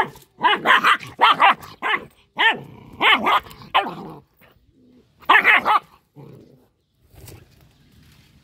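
Young black-and-tan dog barking angrily: one sharp bark, then a quick run of about eight barks over the next few seconds, two or three more just past the middle, and only faint sounds near the end.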